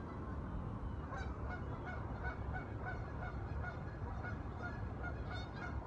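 Geese honking in a steady run of short calls, about three a second, starting about a second in, over a steady low background noise.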